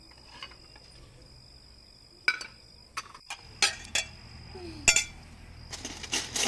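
A handful of sharp clicks and clinks, about five spread out over a few seconds, then a short rustling stretch near the end, over a faint steady high-pitched tone.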